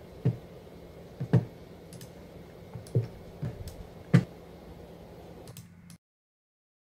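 Half a dozen irregular keystrokes or key clicks on a computer keyboard, picked up as dull knocks through the computer's own microphone over a faint hum. The audio cuts out abruptly about six seconds in.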